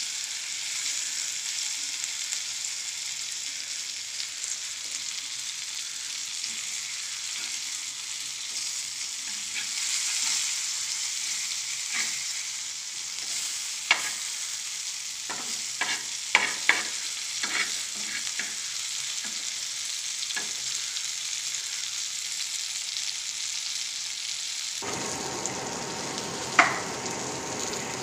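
Murrel (snakehead) fish steaks sizzling as they shallow-fry in oil on a flat pan, a steady hiss. In the middle, a steel spatula clicks and scrapes against the pan several times in quick succession. Near the end the sizzle turns fuller and deeper.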